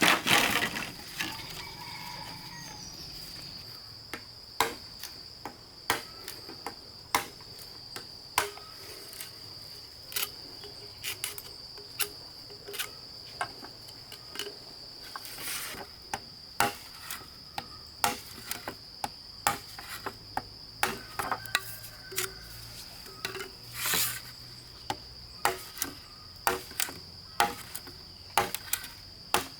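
Steady high-pitched insect trill, typical of crickets, under a string of irregular sharp knocks and taps, roughly one or two a second, that are louder than the trill.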